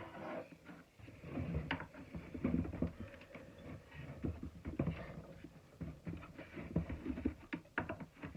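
Handling of a plastic shop-vacuum housing: a run of irregular clicks, taps and scrapes.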